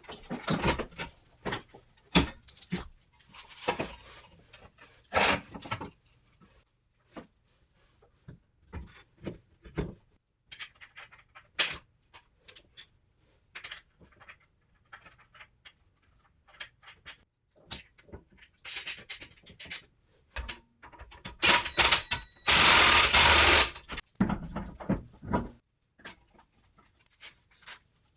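Tool and metal work on a car's suspension: scattered clicks, knocks and clatter, with a loud burst of harsh noise lasting about two seconds a little after the middle.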